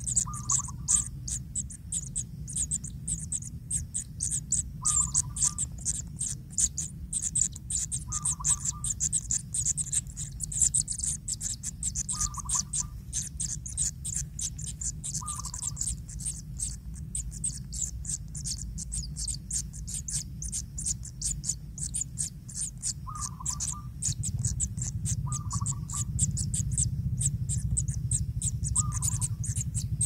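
Kingfisher nestlings in the nest burrow giving a rapid, scratchy, high-pitched ticking without pause. A short call, lower in pitch, comes about eight times at gaps of a few seconds.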